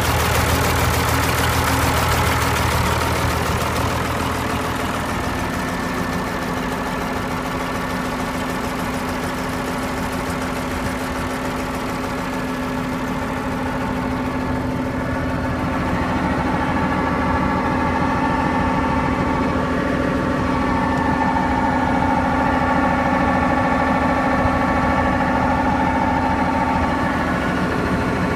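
John Deere 544 wheel loader's diesel engine running steadily. Its low hum changes about five seconds in, and a steady whine comes up over it from about halfway.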